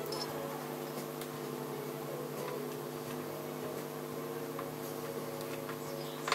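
Kawasaki H1 500 air-cooled two-stroke triple idling steadily while one of its carburettors is being adjusted, with a sharp click near the end.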